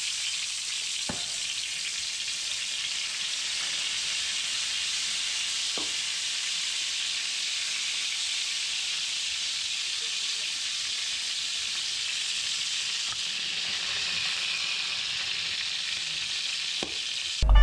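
Tarantulas sizzling steadily in hot oil in a steel wok, with a few light taps and scrapes of a metal spatula as they are stirred.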